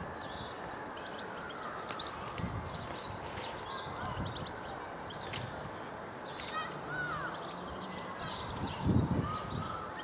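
Small songbirds chirping and calling: many short, high notes overlapping over a steady outdoor hiss. There is a sharp click about halfway through and a brief low rumble near the end.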